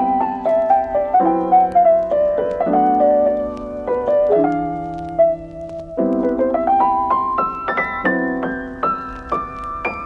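Background piano music: a gentle melody of single notes over held chords.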